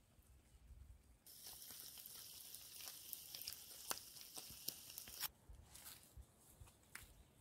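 Ration meals heating in open foil trays on campfire embers, sizzling as a steady faint hiss with a few sharp crackles. It starts suddenly about a second in and cuts off abruptly about four seconds later, leaving only faint rustling.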